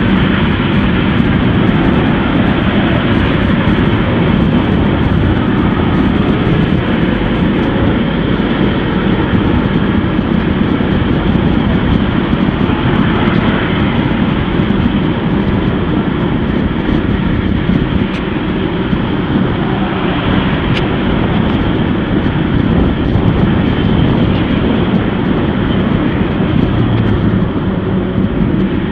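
Steady, loud rushing noise of a bicycle ride: wind buffeting a bike-mounted action camera's microphone, mixed with tyre and road noise.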